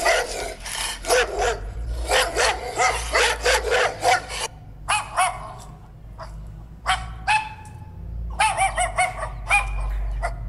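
A dog barking repeatedly: a fast string of barks, then a few spaced single barks, then another quick run near the end.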